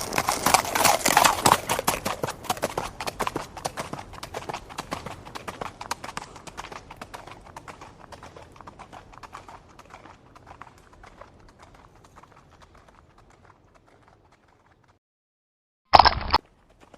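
Horse hoofbeats clip-clopping on hard ground, loud at first and then fading steadily away over about fifteen seconds. After a brief silence, a short loud sound comes near the end, followed by faint hoofbeats again.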